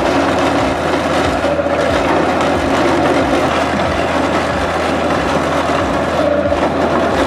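HYPRO 765HB eucalyptus bark processor running: a loud, steady mechanical noise as its blades strip bark from logs.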